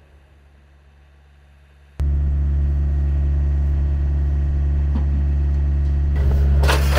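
The fading rumble of an artillery gun's shot dies away for about two seconds, then a sudden cut to a loud, steady low engine hum, with a short burst of clattering near the end.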